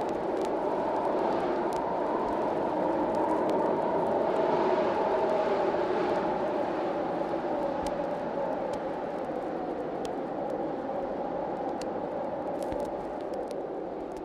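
A steady, droning rumble with faint wavering tones inside it, easing off gradually toward the end, with scattered faint crackles over it: an ambient drone under the end credits.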